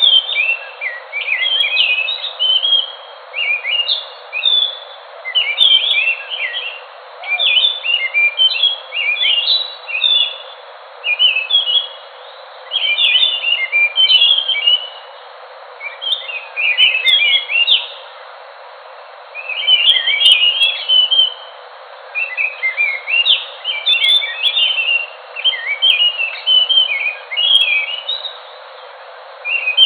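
An anis thrush singing: a long run of rapid, twittering song phrases, each a second or so long, repeated with short pauses over a steady background hiss.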